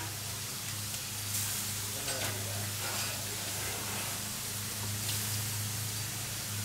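Food sizzling on a gas grill while portobello mushrooms are turned over with a metal spatula, with a few light scrapes and clicks of the spatula on the grate over a steady low hum.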